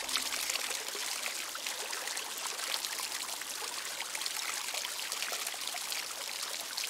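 Small garden fountain running: water pouring and trickling steadily from a spout in its wall and splashing into the pot below.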